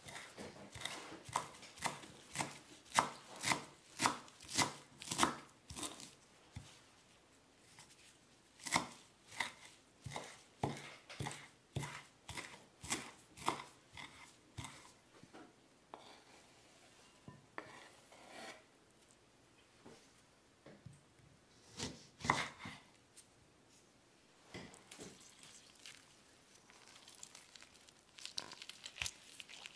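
A chef's knife chopping fresh cilantro on a wooden cutting board: sharp knocks of the blade on the board, about two a second, in runs broken by short pauses, becoming sparser in the second half.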